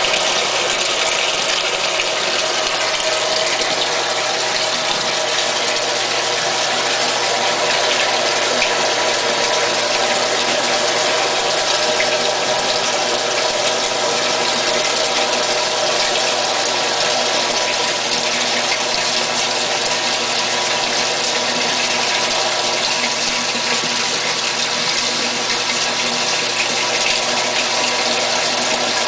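GE Moffat washing machine filling, water rushing steadily into the tub.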